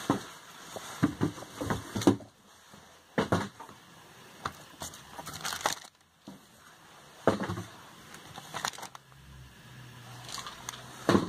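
Irregular crinkling and knocking as packaged products are handled: plastic supplement bottles picked up and set down among plastic-wrapped items, with a short lull about halfway through.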